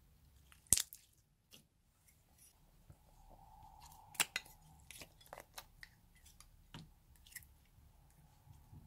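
Slime being stretched, pressed and squeezed by hand, giving irregular sticky clicks and wet pops, the sharpest about a second in and another about four seconds in.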